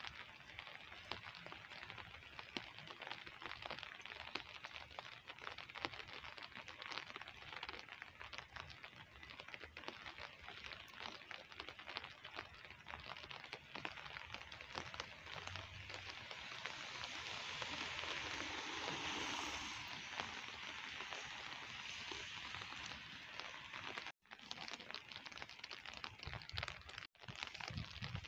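Steady light rain pattering on wet pavement, a dense crackle of small drop ticks. About two-thirds through, a broader hiss swells for a few seconds and fades, and near the end the sound cuts out twice for an instant.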